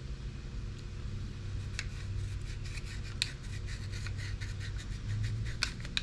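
Hands handling wires and hard plastic parts: scattered small clicks and scratches, over a steady low hum.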